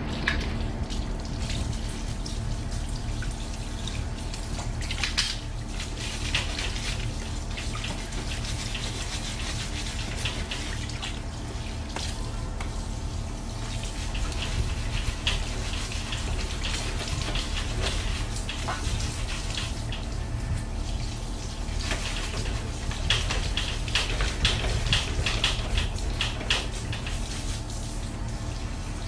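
Water from a hand-held shower hose spraying onto a mountain bike's rear wheel and drivetrain and splashing onto a tiled floor, a steady rush with spells of heavier spatter now and then.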